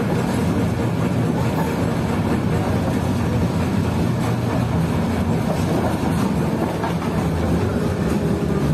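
Steady running noise of a 1987-built KTM-5 (71-605) tram in motion, heard from inside the passenger car: the low rumble of its wheels on the rails at an even speed.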